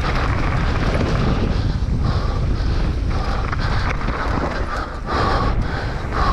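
Wind buffeting the camera microphone during a mountain-bike ride, over a steady rumble of the bike rolling on the trail. A higher buzz comes and goes in short spurts every second or so.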